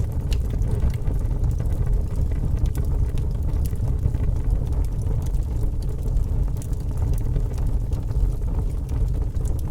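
Fire crackling: a steady low rumble of burning with scattered sharp crackles and pops.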